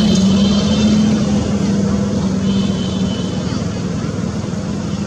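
A motor vehicle engine running steadily: a constant low hum under a broad rushing noise, with faint high chirps near the start and again about three seconds in.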